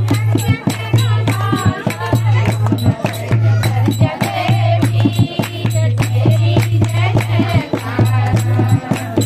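A group of women singing a Hindu devotional bhajan together, accompanied by a dholak drum and steady rhythmic hand-clapping.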